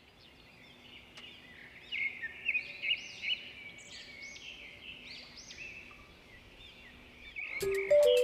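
Birds chirping in many short, overlapping calls. Music starts near the end.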